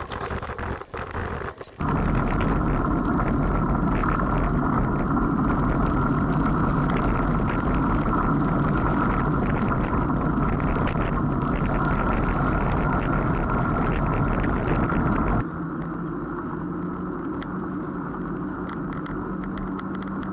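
Riding noise from a camera on a moving bicycle: tyres rolling on a dirt and gravel path, with a steady rush and many small rattles and clicks. It begins as scattered crackle, jumps abruptly to a loud steady rush about two seconds in, and drops suddenly to a quieter rush near the end.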